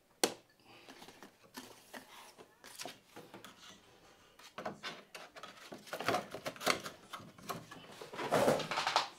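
Clear plastic packaging of model railway wagon boxes being handled: irregular crinkling, rustling and small clicks of plastic, with a sharp click a fraction of a second in and a louder stretch of rustling near the end.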